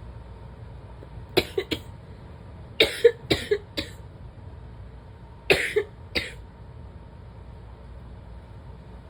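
A woman coughing in three short fits of quick, sharp coughs, three, then five, then two or three, over a steady low background rumble.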